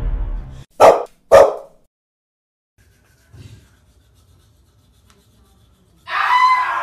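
Music cuts off, then a dog barks twice in quick succession, loud and sharp, about a second in. Near the end comes a high-pitched cry lasting about a second.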